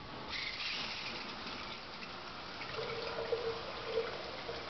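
Shower turned on at its single-handle valve: water comes on with a rush and then runs steadily from the shower head into the stall's pan. A steady mid-pitched whine joins the splash about three seconds in.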